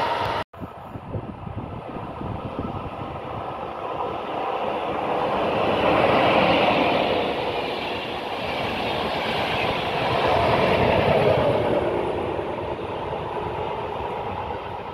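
Passenger train of coaches running past along the platform, its wheels rumbling on the rails with some clickety-clack. The sound swells twice as the cars go by and fades near the end. A brief dropout comes about half a second in.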